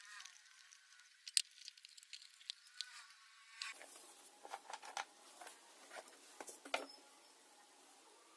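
Faint, irregular clicks and light taps, with a sharper click about a second and a half in and a busier run of clicks in the middle.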